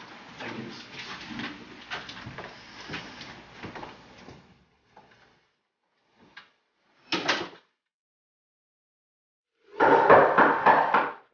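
A front door being handled and shut: soft shuffling and small knocks first, then a sharp thud about seven seconds in as the door closes. Near the end comes a louder noisy sound lasting about a second and a half.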